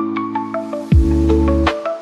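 Electronic background music: short bright pitched notes over held chords, with deep bass notes coming in about a second in.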